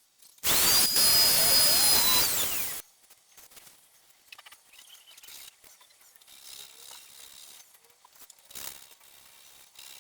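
Power drill running for about two seconds, cutting a cable hole into a wooden desk top, then faint knocks and handling sounds.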